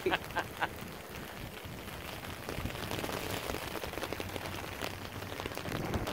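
Rain falling steadily on standing floodwater and soaked ground: an even patter of drops that grows a little louder a few seconds in.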